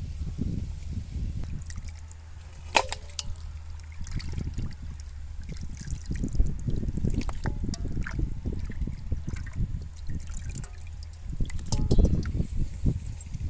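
Raw chicken pieces being washed by hand in a steel bowl of water: water sloshing, trickling and dripping as the pieces are rubbed and lifted out, with a sharp click about three seconds in.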